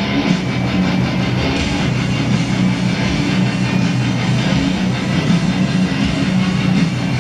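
Background rock music with guitar, running steadily.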